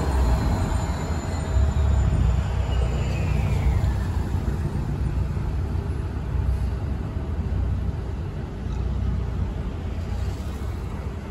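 Slow city street traffic: a steady low engine rumble from a city bus and cars moving off. In the first few seconds a high squeal slides down in pitch and fades out.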